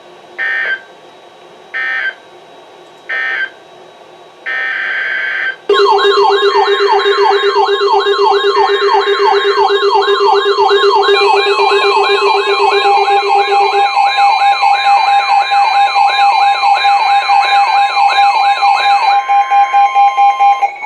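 Emergency Alert System SAME data bursts from a NOAA Weather Radio broadcast: three short buzzy bursts, then a longer one. About six seconds in, several electronic alert sirens and alarm tones start at once and keep going: a warbling low tone, a fast, repeating rising whoop and a steady high tone, all sounding together.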